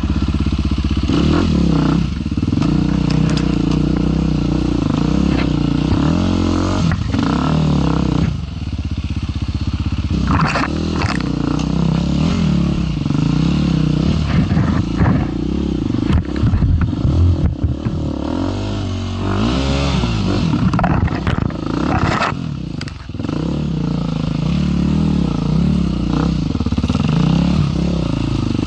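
KTM 350 EXC-F four-stroke single-cylinder enduro engine running at low revs, the throttle rolled on and off so the revs rise and fall, dropping briefly about eight seconds in and again near the end of the second third. Sharp clattering knocks come through now and then as the bike works over rough ground.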